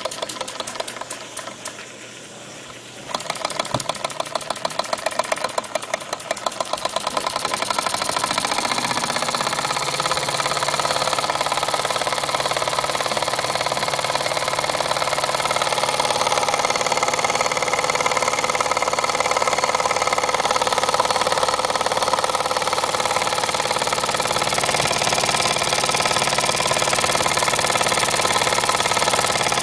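Model stationary steam engine running, its small single cylinder chuffing in a fast even rhythm. It slows and quietens over the first few seconds as steam pressure runs low, then picks up sharply about three seconds in and runs on faster and louder, with a steady hiss of steam.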